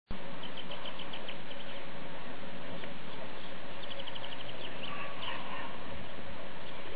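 Steady outdoor hiss with two short runs of rapid high chirps, one near the start and one about four seconds in, from a small animal in the meadow.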